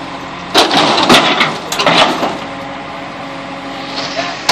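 JCB backhoe loader running while its bucket crushes an auto-rickshaw's body. About half a second in there is a burst of crunching and cracking that lasts a second and a half, then the engine runs steadily. More crunching starts near the end.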